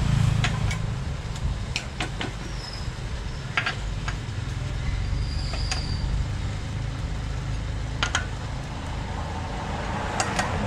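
Scattered metallic clinks and taps as a socket on an extension bar is worked on the crankcase cover bolts of a Buffalo 6.5 engine, about ten over the stretch. A steady low rumble runs underneath.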